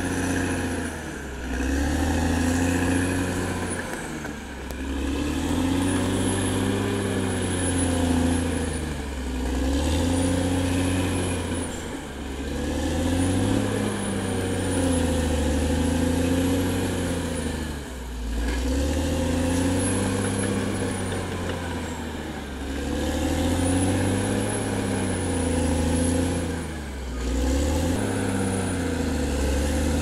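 Caterpillar D6R XL bulldozer's diesel engine working under load, its pitch sagging and recovering every few seconds as it pushes soil and felled timber with its blade. A faint high whine rises and falls above it.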